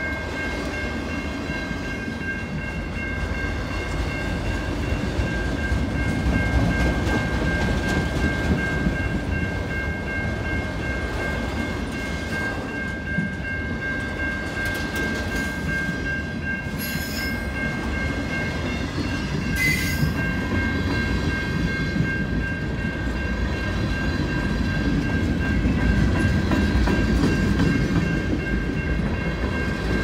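Freight train cars (autoracks, then covered hoppers) rolling past close by: a steady rumble of steel wheels on the rails, with a steady high-pitched tone held over it throughout. Two sharp clanks come a little past the middle.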